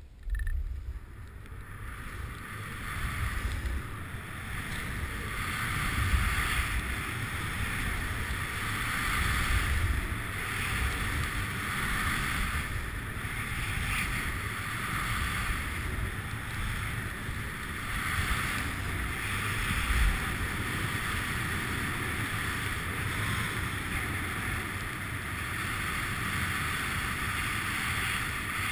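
Skis running down a snowy piste, the hiss of the skis on the snow swelling and fading every couple of seconds with the turns, over wind rumbling on the microphone.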